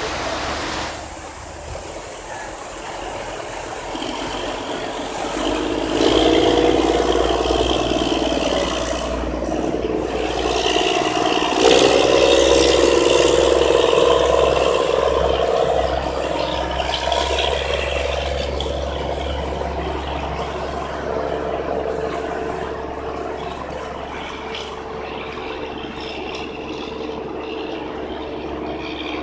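Engine of an ikanago (sand lance) fishing boat running steadily. It grows louder about six seconds in, is loudest around twelve seconds in, then slowly fades as the boat passes.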